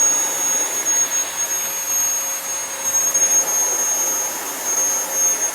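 Cordless battery-powered high-speed turbo fan running flat out: a steady high-pitched motor whine over a loud rush of air.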